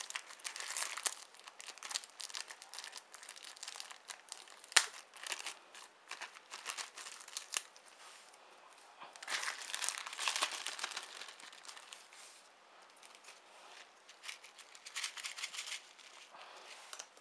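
Clear plastic packaging bag crinkling and rustling in the hands as the phone case is unwrapped, in irregular bursts, with one sharp click about five seconds in.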